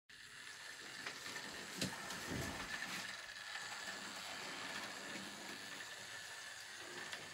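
Bachmann Thomas model locomotive running along the track, its small electric motor and gears whirring steadily, with scattered clicks from the running train.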